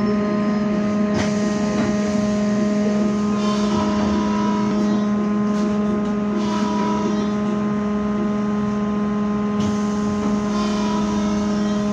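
Steady electrical hum inside a MAZ-203T70 trolleybus cabin while it stands still: several held tones, the deepest the strongest, with no drive-up whine.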